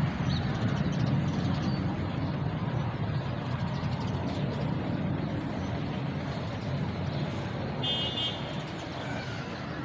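Distant fighter jet's engine giving a steady low rumble that eases off slightly toward the end. A short, high chirp sounds about eight seconds in.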